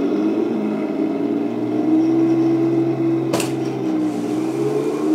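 Henglong Tiger 1 RC tank's onboard sound unit playing its simulated engine sound loudly through its speaker as the tank drives, the pitch rising and falling a little with the throttle. A single sharp click comes about three and a half seconds in.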